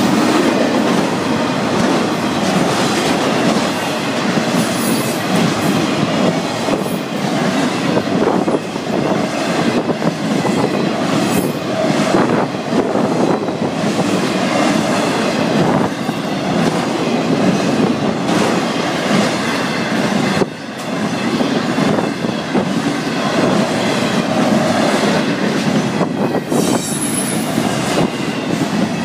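Florida East Coast Railway intermodal freight train passing at speed: a steady, loud rolling noise from its cars, with a dense run of knocks from the wheels on the rails.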